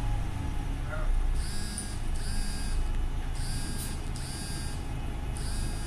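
Low engine and road rumble inside the cabin of a Volvo single-deck bus. From about a second and a half in, a high electronic beep of about half a second sounds in repeated pairs.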